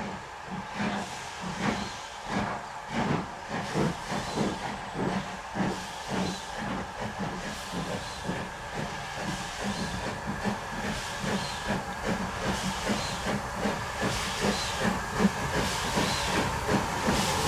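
Steam locomotive working under steam, its exhaust beating in a regular chuff of roughly three beats a second over a steady hiss of steam, growing louder as it approaches.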